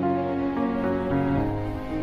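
Soft background music of held, slowly changing notes.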